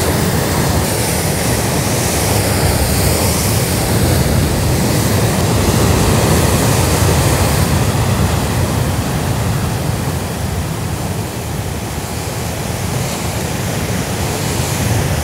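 Heavy surf breaking and churning against coastal rocks: a loud, steady rush of white water with a deep rumble beneath it.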